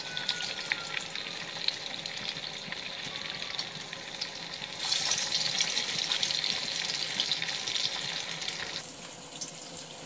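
Lauki (bottle gourd) kofta deep-frying in hot oil in a kadai: a steady sizzle with fine crackling from the bubbling oil. It grows louder about five seconds in and falls back near the end.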